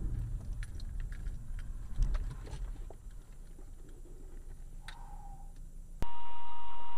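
Car driving slowly over a rutted, slushy road, heard from inside the cabin: a low rumble with small clicks and rattles, one thump about two seconds in and a brief squeak near the end. Just before the end the sound cuts abruptly to a steady high-pitched electronic tone.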